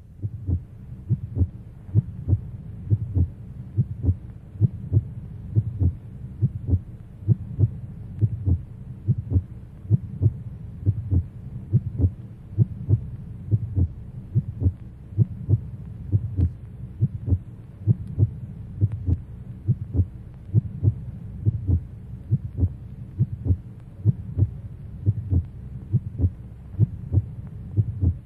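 Heartbeat-like thumping: low, even pulses about twice a second, falling into pairs, over a steady low droning hum.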